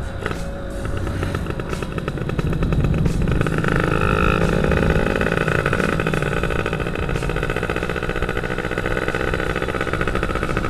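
Yamaha F1ZR two-stroke motorcycle engine being ridden, its note climbing as it accelerates about three to four seconds in, then holding steady.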